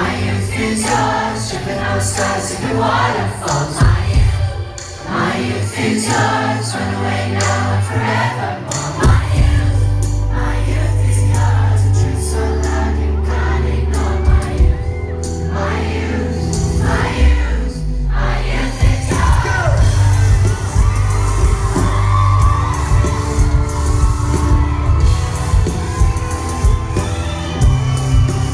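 Live pop song heard from the audience: a male singer sings over keyboards, with crowd whoops. About nine seconds in, the bass and drums come in and a steady beat carries on.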